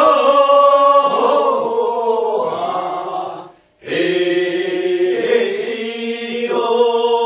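Korean rice-paddy weeding song (first weeding) sung by a group of unaccompanied voices in long drawn-out notes, breaking off briefly about three and a half seconds in before the next phrase starts.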